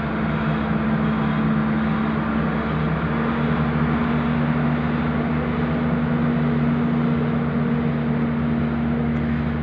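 Airplane passing overhead: a steady drone with a couple of held low tones.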